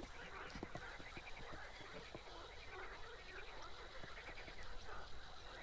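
Faint croaking of frogs, many short overlapping calls.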